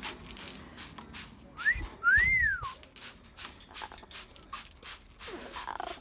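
An Amazon parrot whistling: a short rising note, then a louder whistle that rises and falls, over the repeated short hisses of a trigger spray bottle misting it with water.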